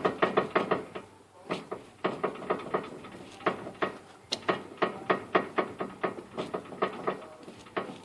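Repeated clicking and knocking from a 2006 Mazda 3's steering rack and pinion, several uneven clicks a second, some with a short ring: the clicking of a worn steering rack.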